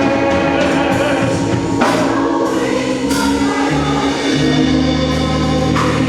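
Gospel choir singing a slow, sustained passage over steady low bass notes.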